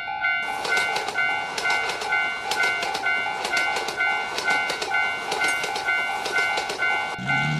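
Railroad crossing warning bell ringing in an even, repeating pulse while a passing train's wheels click over the rail joints. The train noise stops near the end, when music comes in.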